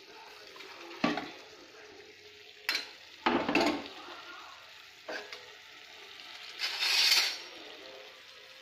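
Steel spatula knocking and scraping against a pan of vegetable masala a few times, over a faint steady sizzle of the masala cooking. A longer, brighter scrape comes near the end.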